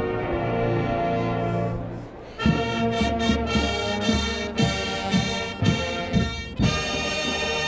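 College marching band playing: a sustained brass chord fades and thins about two seconds in. The full band then comes back in loudly, with punchy accented brass chords and hits.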